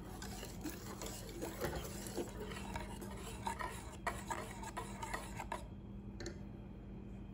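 Wire whisk stirring a thick chocolate mixture in a stainless steel saucepan, its wires ticking and scraping against the pan, over a steady low hum. The ticking thins out after about five and a half seconds.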